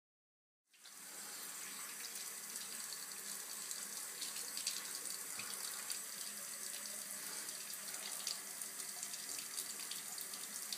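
Bathroom sink tap running, water pouring and splashing steadily into the basin, starting just under a second in.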